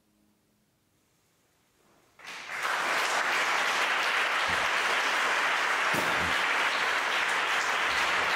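The last soft chord of a Steinway grand piano dies away into near silence. About two seconds in, an audience breaks into applause that swells within half a second and then holds steady.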